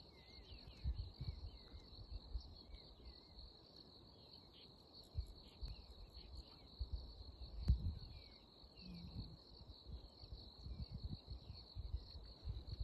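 Steady shrill insect chorus with a pulsing edge, over scattered short chirping calls and irregular low rumbles.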